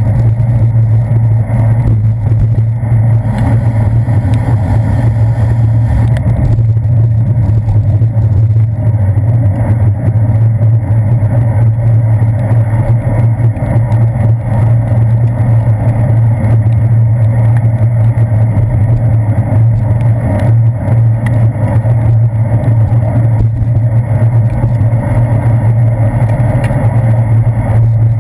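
Steady, loud low rumble of wind and road vibration from a bicycle rolling over wet pavement, picked up by a handlebar-mounted GoPro Hero 2.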